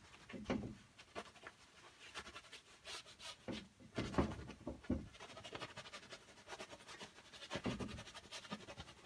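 Palette knife scraping and dabbing acrylic paint on a canvas in irregular strokes.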